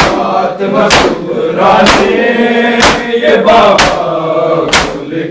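Men chanting a Shia noha together in a slow, mournful melody, with loud, sharp hand slaps on bare chests (matam) at a steady beat of about one per second.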